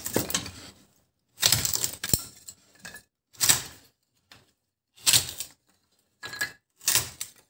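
Thin wooden boards being split into kindling on a homemade steel-blade kindling splitter: a series of separate sharp cracks and clatters of wood, with the split sticks knocking together.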